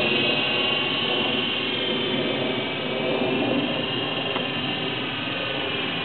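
Air Hogs Gryphon toy RC helicopter, fitted with a different battery and rear rotor, flying at about half throttle: its small electric motors and rotors give a steady high whine that wavers slightly in pitch.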